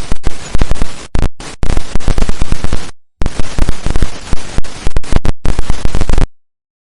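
Animation sound effects: rapid loud cracks, about six to eight a second, in several bursts broken by short gaps, stopping abruptly about six seconds in.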